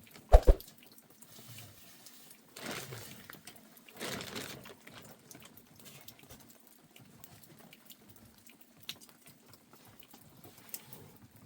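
Faint sound of water, swelling twice briefly a few seconds in, after a sharp knock near the start.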